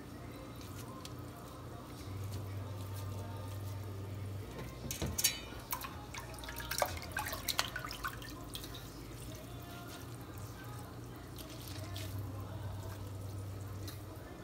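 Wet hands dipping into a pot of starchy noodle water and working cooked rice vermicelli in a plastic colander, making small splashes and drips that cluster a few seconds in. A steady low hum runs underneath.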